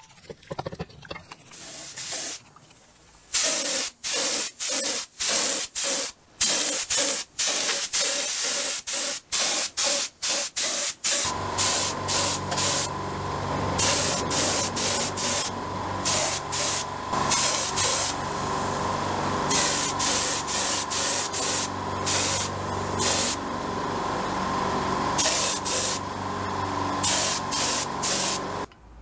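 Spray paint hissing in short repeated bursts as the drill's housing parts are coated white. From about eleven seconds in, a steady motor hum joins underneath while the bursts continue.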